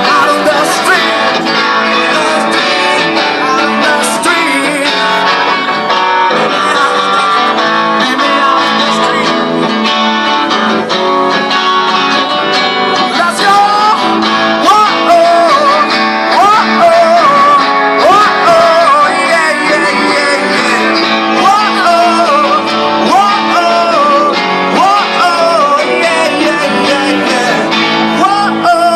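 Live acoustic song: two acoustic guitars strumming, with a voice singing over them.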